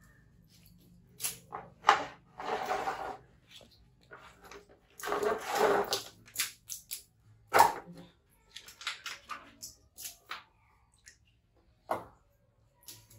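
Scattered rustling and scuffing with a few sharp knocks as a baby macaque in a diaper is handled and set on a plastic stool on a tiled floor.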